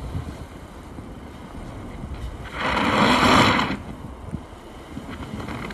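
2022 Mazda 6 with a 2.5-litre four-cylinder engine, front-wheel drive, running with a low rumble as it struggles through deep snow. About two and a half seconds in, the front tyres spin for about a second, giving a loud rushing hiss as they churn and throw snow.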